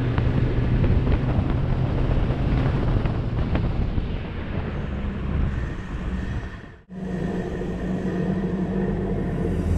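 Engine of a Toyota Hilux 2.4 diesel pickup running steadily under load while driving on soft sand, with small rattles and ticks. The sound drops away sharply for a moment about seven seconds in, then the engine note resumes, higher and steady.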